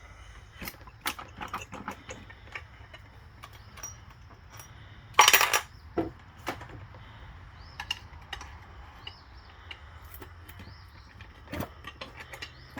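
Front pump of a 4L65 automatic transmission being pried loose from the case: scattered metal clicks and knocks, with one loud clank lasting about half a second about five seconds in.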